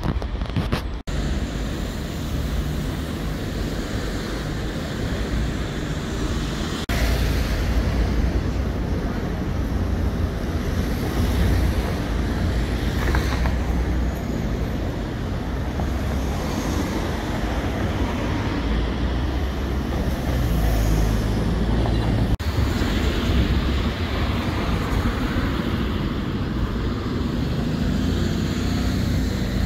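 Steady road traffic noise with a deep rumble underneath, breaking off abruptly a few times.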